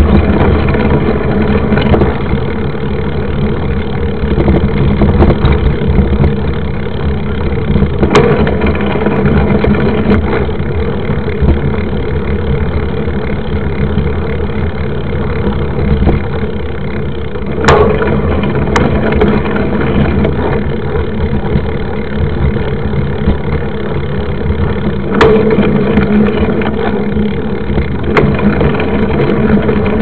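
Steady loud rumble of a mountain bike riding a dirt road: wind buffeting the bike-mounted microphone and the knobby tyre rolling over the dirt. A handful of sharp knocks from bumps come through, the loudest a little past halfway.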